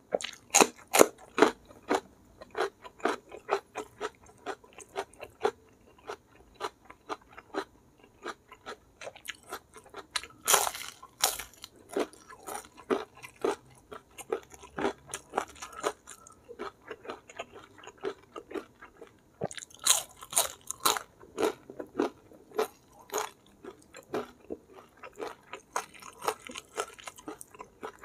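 Close-miked eating: steady chewing and crunching as a raw green chili and fried tempeh are bitten and chewed with rice and goat curry, about two to three crunches a second, with a few louder bites about ten and twenty seconds in.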